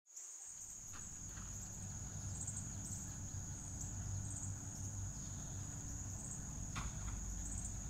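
Insects, crickets or cicadas, trilling in a continuous high-pitched drone, over a low rumble.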